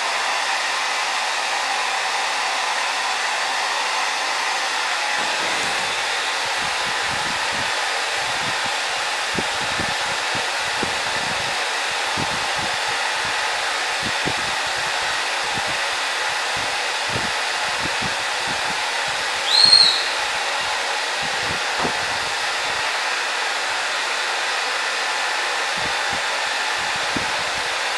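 Handheld hair dryer blowing steadily on a dog's coat. A short high squeak rises and then holds briefly about two-thirds of the way through.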